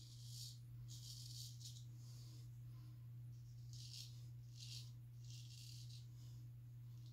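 Razor scraping through lathered stubble in about six short strokes, faint, over a steady low hum.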